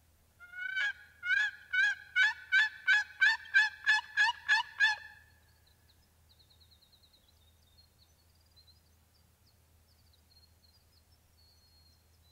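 A turkey call is worked in a run of about eleven loud, evenly spaced yelps, roughly two a second, lasting about five seconds, to draw a gobble from a wild turkey.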